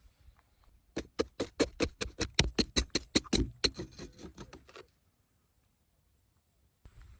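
A quick run of sharp taps or knocks, about six a second, for nearly four seconds, stopping abruptly about five seconds in.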